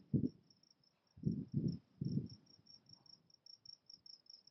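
An insect chirping steadily at a high pitch in quick, even pulses, with four short low rumbles near the start and between one and two seconds in.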